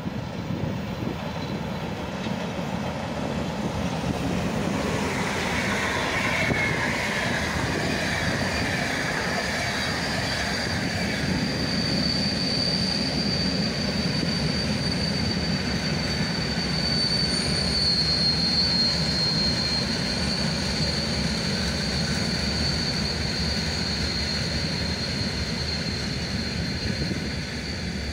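A locomotive hauling a long rake of hopper wagons rolling past, the wheels rumbling on the rails. A high, steady wheel squeal sets in about eight seconds in and lasts almost to the end.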